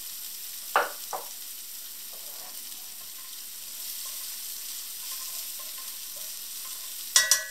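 Diced onion and Italian green pepper sizzling steadily in olive oil in a nonstick pan over low heat while being stirred with a utensil. There are two short scrapes about a second in, and near the end a few sharp, ringing clacks of the utensil against the pan.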